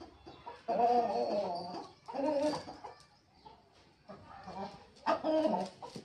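Aseel chickens clucking and calling in three bursts: a longer one about a second in, a short one just after two seconds, and another near the end.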